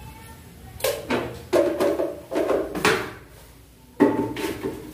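A run of clinks and knocks of kitchen utensils, a spoon and a plastic container handled around a steel cooking pan, each with a short ring, and a louder knock about four seconds in as something is set down on a shelf.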